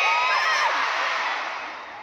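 A crowd cheering, with several voices whooping in short rising and falling shouts over a general hubbub that dies away toward the end.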